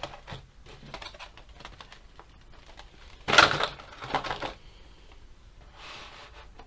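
Rigid clear plastic packaging tray of a trading-card box being handled and lifted out, giving a run of light clicks and crackles, with a louder crackling burst about three seconds in.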